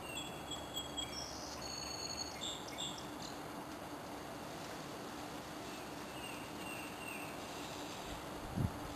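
Small birds calling with short, high whistled notes over the first three seconds and a few fainter chirps later, over a faint steady low hum. A low thump comes near the end.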